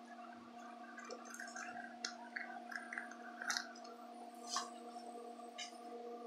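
Cardboard shipping box being handled and turned over: scattered light taps, knocks and paper rustles from the box and its labels, the sharpest about two, three and a half and four and a half seconds in. A steady low hum runs underneath.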